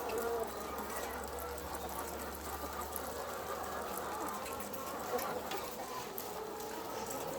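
A flock of chickens making a steady chatter of many overlapping short calls, with scattered small clicks.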